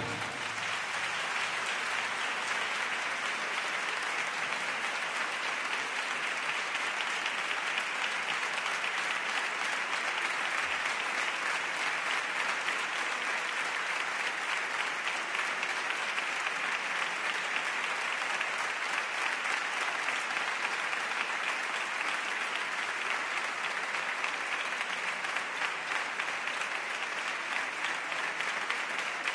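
An audience applauding steadily, many hands clapping together, at the close of a piece played by a concert band and choir.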